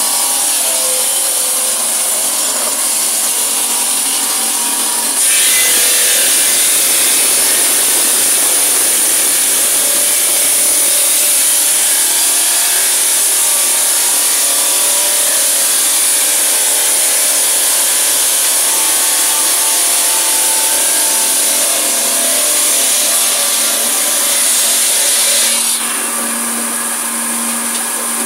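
Electric stone-cutting circular saw cutting marble: a loud, steady grinding hiss with a high whine over it. It gets louder about five seconds in and eases back near the end.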